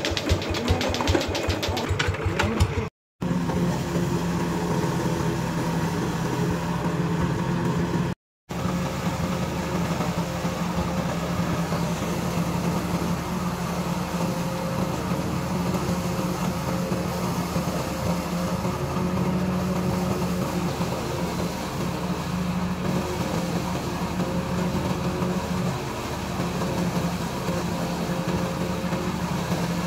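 Two-wheel hand tractor engine running with rapid even firing pulses, then after a cut a steady drone of the hand tractor engine belt-driving a corn sheller.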